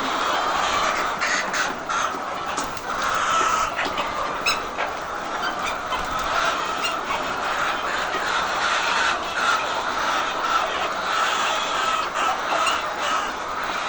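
Large flock of laying hens clucking and calling without pause: a dense, steady chatter of many short, overlapping calls.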